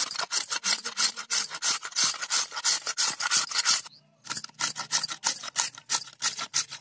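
Raw potato grated by hand on a metal flat grater: a run of quick rasping strokes, with a short pause about four seconds in.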